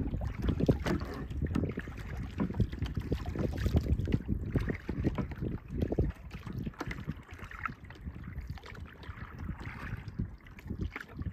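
Wind buffeting the microphone on a kayak out on the water, with irregular splashing and lapping of water. Gusty, stronger in the first half and easing about halfway through.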